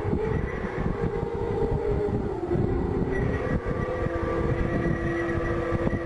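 The Singing Ringing Tree's steel pipes humming in the wind: several steady, overlapping tones held like a drone chord, with one lower note growing stronger about halfway through. Wind buffets the microphone underneath.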